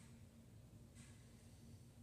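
Near silence: room tone with a faint steady low hum and two faint soft rustles about a second apart.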